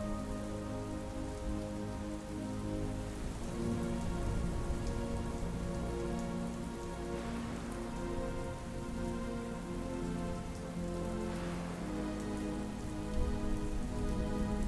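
Steady soft rain, with a slow ambient score of held, sustained notes that change gently underneath it.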